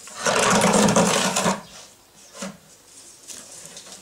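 Wooden baling box dragged across a paved yard, a loud rough scrape lasting about a second, followed by a couple of light wooden knocks.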